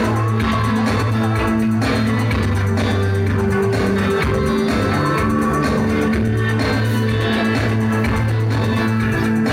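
Live band music: a rock song with held bass notes that change pitch every second or so, steady guitar or keyboard tones above them, and a regular drum beat.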